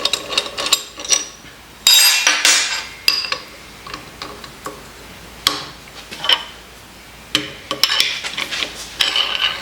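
Steel vise parts and tools clinking and knocking as they are handled and fitted together, with a string of separate metallic knocks that ring briefly. The loudest knock comes about two seconds in.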